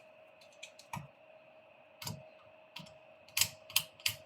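Light clicks and taps of a screwdriver against the mini PC's heat sink and case as it is worked loose, a few at first and then coming more often in the second half. A faint steady hum runs underneath.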